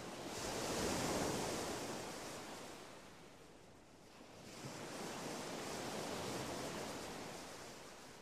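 Ocean surf: two waves swelling and washing back, each rising and fading over a few seconds.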